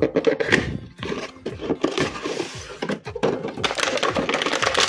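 A cardboard toy box being handled and opened, then clear plastic packaging crinkling and crackling as an action figure is pulled out. The crinkling becomes dense and continuous in the second half.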